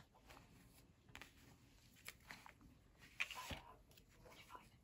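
Near silence, with faint rustles and a few light taps as fabric-covered handmade journals are handled and shifted on a table. The most noticeable tap comes a little past the middle.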